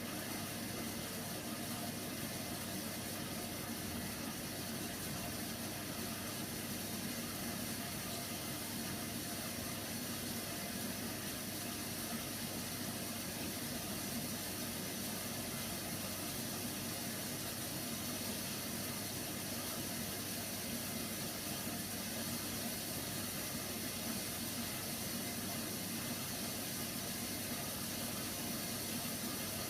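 Hoover Nextra HNWL 7146 washer dryer taking in water through its inlet valve at the start of a wash: a steady hiss of water filling the drum.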